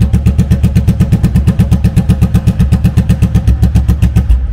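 Yamaha V-twin cruiser idling through open Cobra straight-through exhaust pipes with no dB-killer baffles fitted. It gives a loud, steady, even beat of about ten pulses a second.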